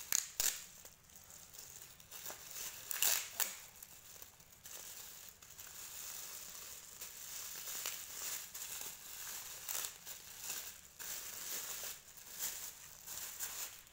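Gift wrapping paper crinkling and tearing as it is pulled off a present by hand, with a few sharper rips near the start and about three seconds in.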